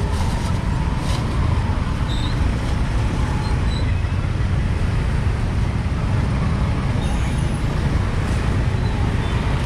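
Busy street ambience: a steady low rumble of passing motorbike and vehicle traffic.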